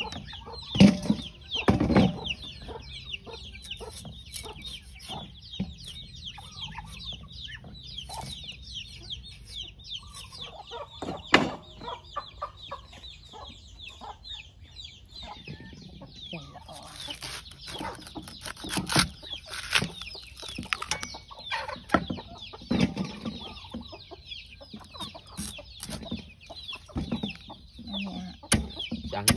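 Chickens clucking and calling continuously, with scattered sharp knocks; the loudest knocks come about one and two seconds in and again around eleven and nineteen seconds.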